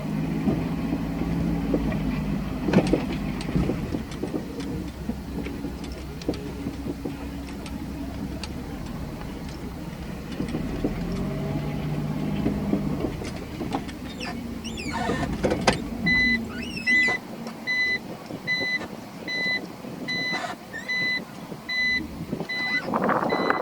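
A car engine running steadily, then shut off about two-thirds of the way in. It is followed by a car's electronic warning chime beeping at an even pace, about one and a half beeps a second.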